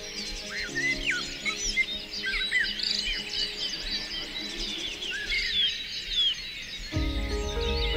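Many birds chirping and singing at once, with short overlapping calls, over soft background music chords. The music gets louder and fuller about seven seconds in.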